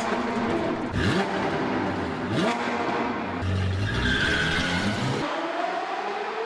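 A car engine revving in repeated rising sweeps, with tyre squeal and skidding noise. About five seconds in, the deep part drops away and a single rising whine carries on.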